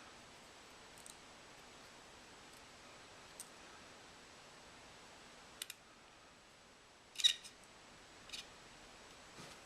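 Sparse small clicks and taps of tiny screws and fine tools being handled on a dial caliper during reassembly, a quick cluster about seven seconds in the loudest.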